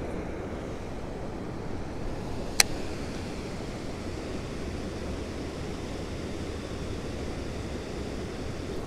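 Steady rush of water pouring over a river spillway, with one sharp click about two and a half seconds in.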